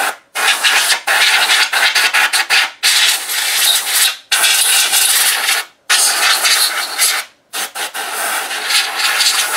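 Can of compressed air spraying through its straw in about five long hissing bursts, each one to two seconds, with short breaks between them, blowing dust off a ceiling fan motor.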